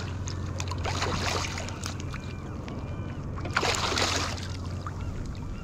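Hooked silver (coho) salmon thrashing at the surface in shallow water, splashing in the first second or so and again about three and a half seconds in.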